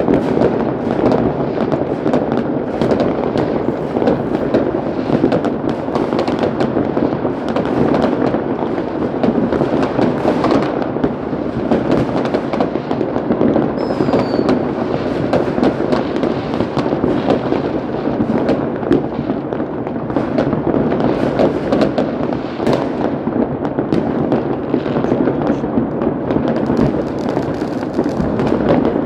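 A dense, continuous barrage of fireworks and firecrackers: many bangs and crackles overlapping without a pause.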